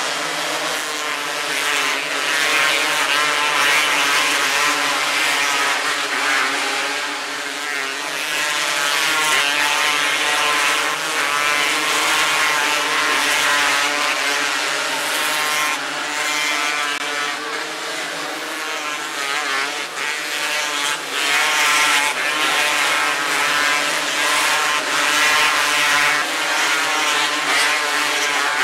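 A pack of 270cc micro sprint cars racing, their engines running at high revs without a break, the pitch rising and falling as cars throttle through the turns and pass by.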